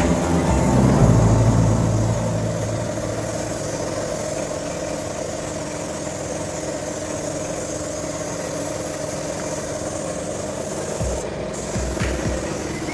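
Compressed-air paint spray gun hissing steadily as it sprays paint, with a low rumble underneath that is loudest in the first couple of seconds. Near the end the hiss breaks off for a moment.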